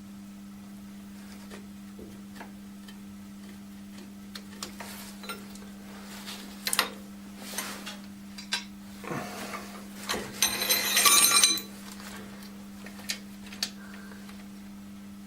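Metal tractor parts and tools being handled while a new lever is fitted into a cast-iron cover: scattered clicks and clinks, then about a second of jangling metallic ringing past the middle. A steady low hum runs underneath.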